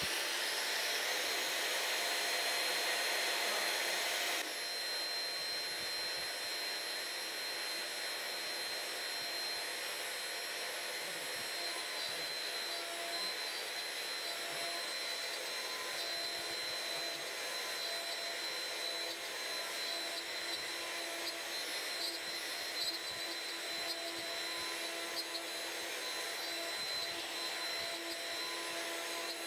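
A shop vacuum draws through the dust shoe of a CNC router while the router spindle cuts, making a steady rushing hiss with a thin high whine. The level drops a little about four seconds in.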